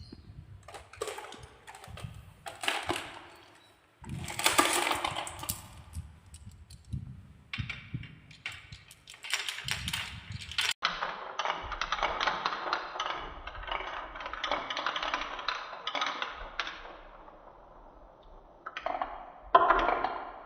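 Balls rolling and clacking down a handmade gutter-slope marble-run course, in several separate runs with sudden breaks between them, and a longer stretch of steady rattling rolling in the middle.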